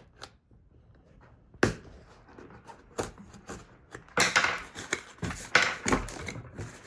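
Cardboard packaging being poked and pried open by hand with a pencil: irregular taps, knocks and scraping with some rustling, busier in the second half.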